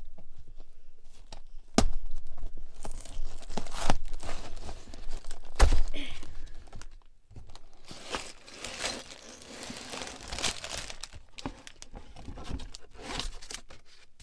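Cardboard Lego Speed Champions box being torn open, with several sharp rips and knocks in the first half. Then softer crinkling and rustling of plastic bags of bricks and paper as the box is emptied.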